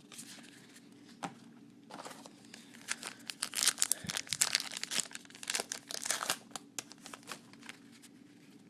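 A trading-card pack wrapper being torn open and crinkled by hand. A dense run of crackling starts about two seconds in and is loudest in the middle, then dies down.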